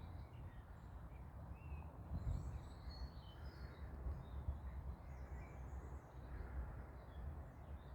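Scattered faint bird chirps and short whistles, several birds calling on and off, over a steady low rumble.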